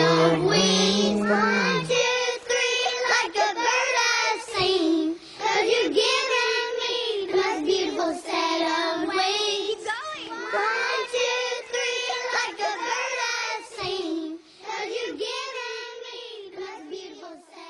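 Vocal singing from the song's closing section over light backing. A low sustained bass line drops out about two seconds in, and the song fades out near the end.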